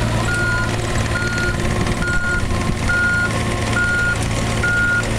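Komatsu PC35R-8 mini excavator's backup alarm beeping, six beeps just under a second apart, over the steady running of its Yanmar three-cylinder diesel as the machine travels on its tracks.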